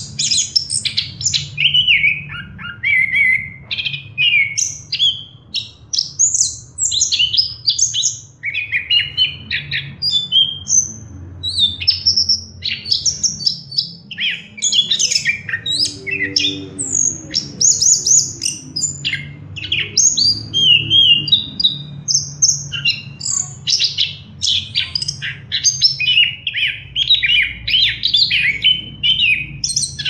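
Chestnut-capped thrush (anis kembang) in full song: a loud, unbroken stream of quick, varied high chirps, whistles and trills with a few harsher notes. A steady low hum runs underneath.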